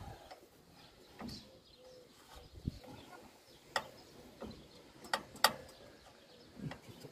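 Hand tools working on a baler's knotter: a few scattered, light metallic clicks and taps, roughly one a second, as a wrench and bolts are handled on the metal frame.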